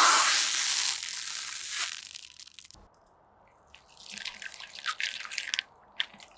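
A stack of aluminium foil baking cups crunching and crinkling flat under a car tyre, fading out near the three-second mark. After a short pause, plastic cups of coloured liquid crackle and splatter under the tyre for about two seconds, followed by a few scattered clicks.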